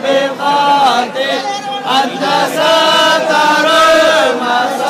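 A crowd of men chanting a devotional hymn together in unison, in long held, melodic phrases.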